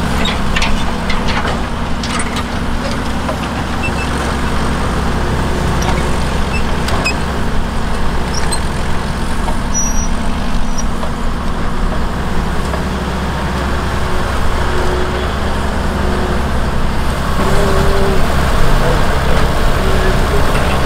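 Engine of a vintage crawler cable dragline running steadily under load as its winches are worked, with a few clicks and knocks in the first three seconds. The sound gets a little louder near the end as the bucket dumps its load into a haul truck.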